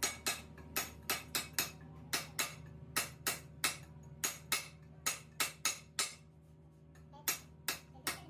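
Hand hammer striking a fresh weld on a steel truck rear axle housing, chipping off the welding slag: sharp metallic knocks about three a second, with a pause of about a second near the middle.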